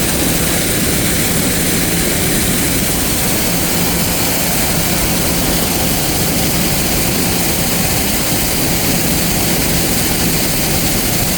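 Silo unloader's distributor running, its small ring-drive motor turning the ring: a loud, steady rushing drone with a constant hum.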